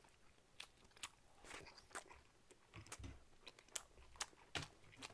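Faint chewing of a skewered Korean fish cake (eomuk), with scattered small wet mouth clicks and smacks at irregular intervals.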